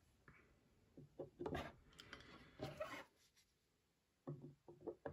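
Hard plastic PSA graded-card slabs handled and set on a wooden display stand: soft knocks and rubbing scrapes in two short clusters, one about a second in and one near the end.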